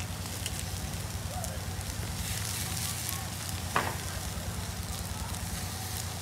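Meat sizzling on a wire grill over a charcoal fire, over a steady low hum. A meat fork shifts the pieces, with one sharp click near the middle.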